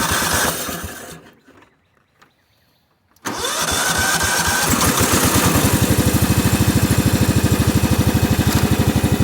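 Cub Cadet HDS 2135 riding mower engine that has been hard to start: its sound dies away about a second in, and after a short pause it suddenly catches, revs up and settles into steady running with an even pulse.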